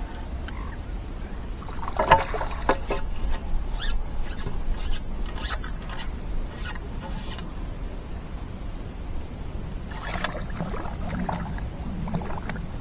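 Fishing tackle being handled: rustles, clicks and light knocks in two bursts, over a steady low outdoor rumble.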